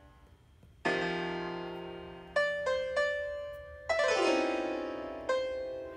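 Piano app on an iPad Pro playing sampled piano notes tapped on the touchscreen, heard through the tablet's speakers: a chord about a second in, then a few single notes and another chord, each struck and slowly fading.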